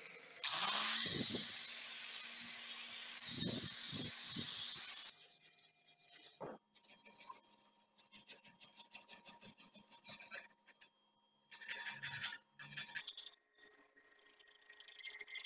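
An angle grinder with a red non-woven polishing wheel runs against a steel knife blade made from bearing steel, a steady high hiss that cuts off about five seconds in. After that the blade is rubbed by hand in short, irregular back-and-forth strokes.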